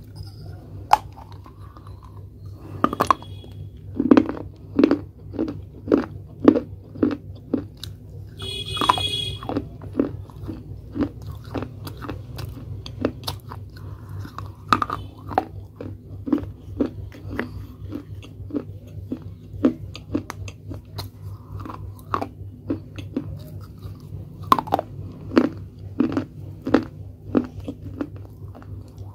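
Close-up chewing and crunching of bitten-off pieces of a small baked clay pot: a steady run of sharp crunches, about one to two a second, with a few harder bites. A brief high squeak about nine seconds in, over a steady low hum.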